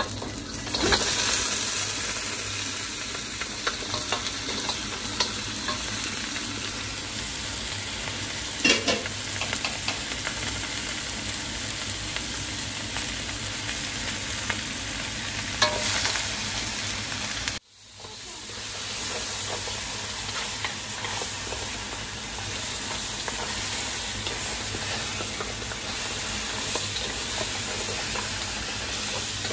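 Mud crabs frying and sizzling in hot olive oil with onion, garlic and ginger in a steel wok, stirred with a wooden spatula that now and then scrapes and knocks against the pan. The sizzle cuts out sharply for a moment a little past halfway, then carries on.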